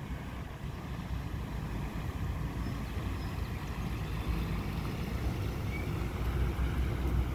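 Cabin cruiser's engines running at low speed as it motors past, a steady low rumble that grows a little louder toward the end.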